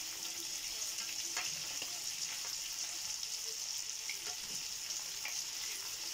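Fish fillets sizzling as they pan-fry in butter and cooking oil in a non-stick frying pan: a steady hiss, with a few light clicks as a fork turns the pieces against the pan.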